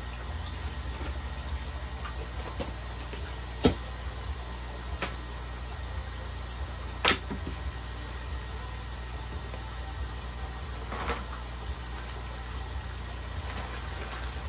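A few sharp clicks and clacks over a steady low hum, the loudest about seven seconds in: sections of model railroad track being handled and fitted together.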